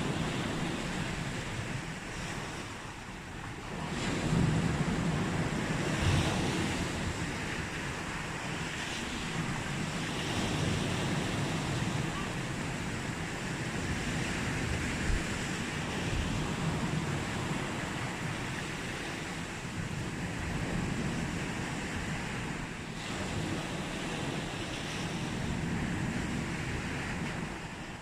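Sea waves breaking and washing on the shore in a continuous surf, swelling and easing every few seconds, with some wind on the microphone.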